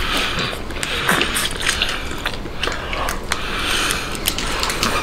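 Steamed crab shell being bitten and chewed close to the mouth: a run of sharp cracks and crunches, with sucking at the meat between them.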